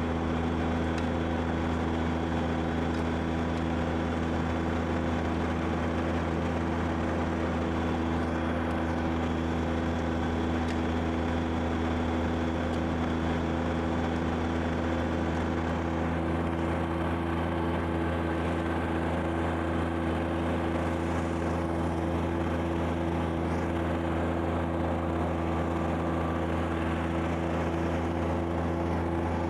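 Kubota BX2680 compact tractor's three-cylinder diesel engine running steadily at working speed while it drives the rear-mounted snow blower. A fainter hiss of thrown snow is heard with it and thins out about halfway through.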